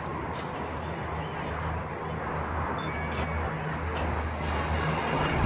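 Steady low hum and rushing noise of a Skyfari aerial tram gondola riding along its cable, heard from inside the open gondola, with a few faint clicks.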